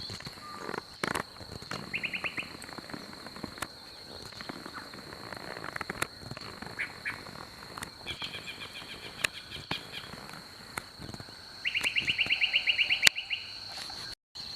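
Woodland ambience: a steady high-pitched insect drone with three rapid pulsed trills from calling animals, each lasting one to two seconds. About thirteen seconds in comes a single sharp crack, the loudest sound here, which is the Avenge-X air rifle's shot.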